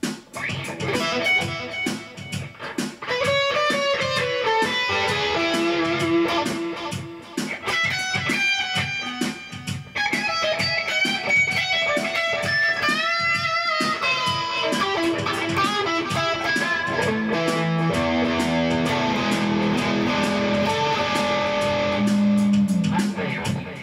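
Rock music led by electric guitar melody lines over a steady beat.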